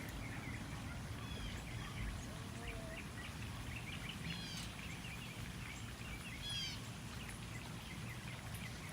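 Small birds chirping and calling, with short sweeping chirps scattered throughout and small clusters about 4.5 and 6.5 seconds in, over a steady low background rumble.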